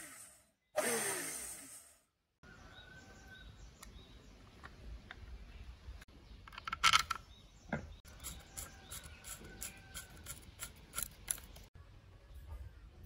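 The cutter drum of a restored KREX electric planer is spun by hand through its drive belt, whirring and falling in pitch as it coasts down, about a second in. Then come handling knocks, a sharp clatter about seven seconds in, and a run of light clicks as the plastic belt cover is fitted and screwed down.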